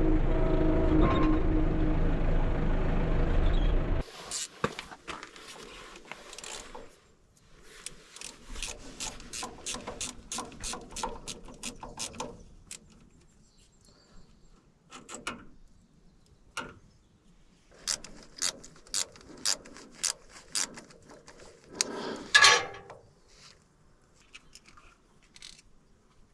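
Backhoe loader's diesel engine running steadily, cut off abruptly about four seconds in. After that come quieter sharp metallic clicks and taps, some in quick runs, with a louder scrape near the end.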